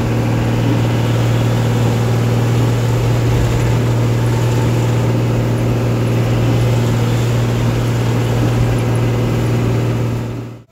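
Bus engine running steadily at road speed, heard from inside the cab as a deep, even hum, under a steady hiss of rain and tyres on the wet road. It fades out abruptly in the last half second.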